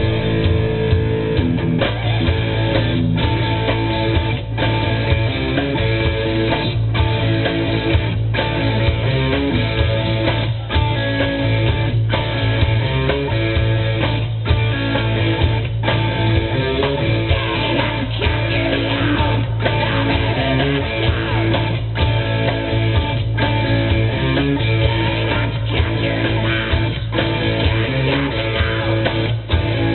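Live rock band playing a song: electric guitars, bass guitar and a drum kit.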